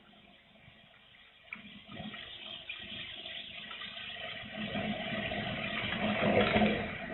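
Strong wind gusting, a rushing noise that builds from near quiet about two seconds in to its loudest near the end, then eases slightly.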